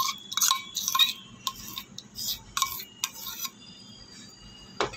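Metal spoon scraping and clinking against a stainless steel bowl while curd is spooned out of it, a quick run of clinks over about three seconds, then a single sharp knock near the end.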